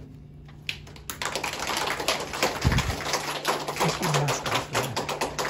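A small group clapping, starting about a second in, with a low thump near the middle.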